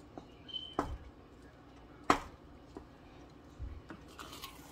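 Wooden spoon stirring thick maja blanca pudding in a stainless steel saucepan, knocking against the pan's side a few times, the sharpest knock about two seconds in.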